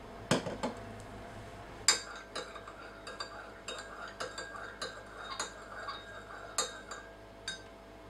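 A French press set down on the counter with a couple of knocks, then a metal teaspoon stirring coffee in a ceramic mug, clinking against the sides in a quick, uneven run.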